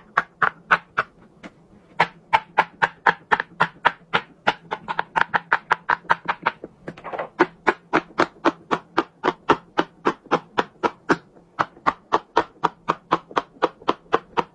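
Green silicone pop-it fidget toys having their bubbles pushed through by both hands in quick succession: a fast run of sharp pops, about five a second, with a short pause about a second in.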